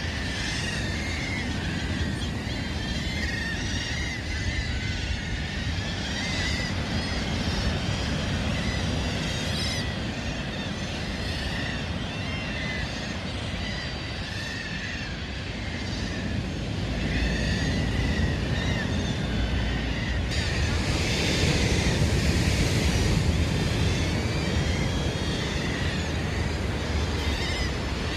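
A large flock of coastal birds calling constantly, many short chirping calls overlapping one another, over a steady low rumble of surf that swells for several seconds past the middle.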